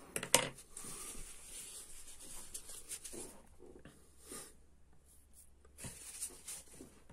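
Scratchy rubbing and handling noises from work on the rifle's breech, with a sharp click about a third of a second in and a few shorter scraping bursts later on.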